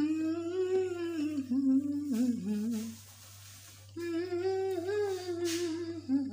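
A person humming a wordless tune: a long wavering phrase, a pause of about a second, then a second phrase.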